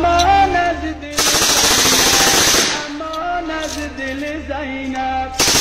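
Bursts of fire from a mounted machine gun: one sustained burst about a second in lasting nearly two seconds, and another starting near the end. Heard over a male voice singing a lament.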